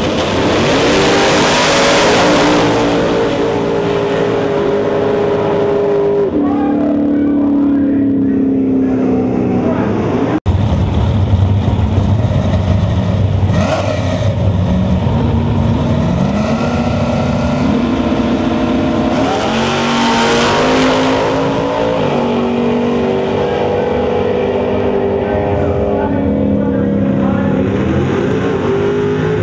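Outlaw Drag Radial race cars launching side by side and running down the drag strip at full throttle, their engine note climbing and dropping in steps through the gear changes. Two separate passes; the second begins about ten seconds in.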